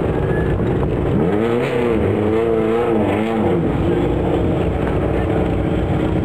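Classic Mini Cooper rally car's A-series four-cylinder engine running at a fast idle, revved up and down in several quick blips from about one to three and a half seconds in.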